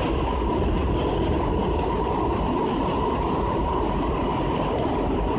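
Washington Metro subway train running between stations, heard from inside the railcar: a steady noise of wheels on the track.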